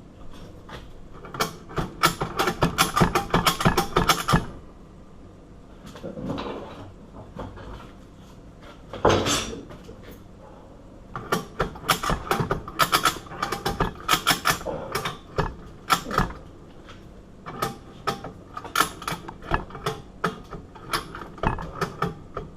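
Ratchet strap being cranked to force bolt cutter handles closed on a padlock shackle: several runs of rapid clicking from the ratchet, with pauses between them.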